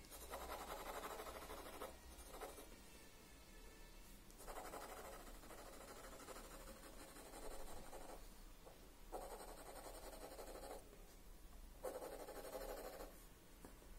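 Graphite pencil shading on drawing paper: faint scratchy strokes in about five runs of one to two seconds, with short pauses between them.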